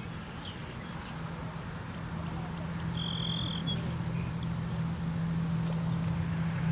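Outdoor ambience with a steady low hum that grows louder from about a second in, with small birds chirping in short, high, repeated notes through the second half.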